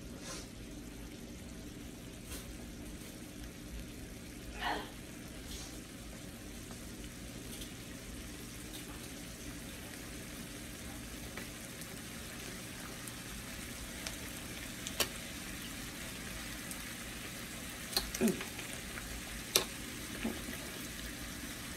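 Sloppy joe meat sauce (ground beef in ketchup) sizzling steadily in a frying pan on the stove. A few sharp clicks come in the second half.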